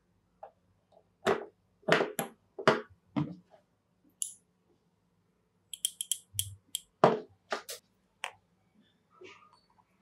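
Hand-tool and metal-part handling: a string of sharp knocks and clicks with a few high metallic clinks, in two bursts, one starting about a second in and one about six seconds in.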